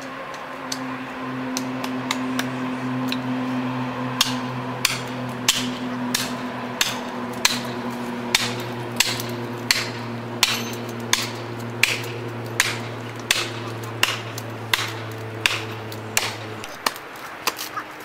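Plastic felling wedges being hammered into the cut of a large tree: regular sharp blows, about three every two seconds, that drive the wedges to tip the tree. A chainsaw idles steadily underneath and cuts off near the end.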